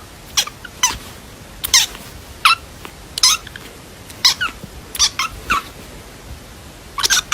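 Young kitten mewing, about ten short, high-pitched cries spaced irregularly.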